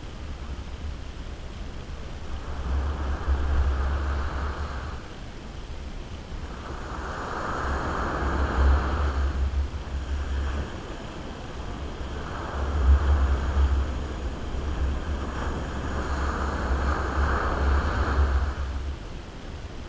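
Surf on a sandy beach: about four waves breaking and washing up the shore a few seconds apart, each swelling and fading, over a steady low rumble.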